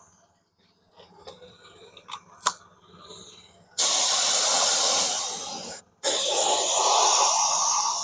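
Two long bursts of compressed air hissing from an air nozzle, each about two seconds with a brief break between, while the alloy wheel is readied for paint; a few light clicks and taps come before them.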